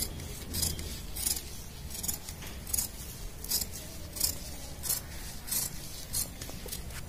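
Large steel tailor's shears cutting blouse fabric along the armhole curve: about ten crisp snips at a steady pace, one every three-quarters of a second or so.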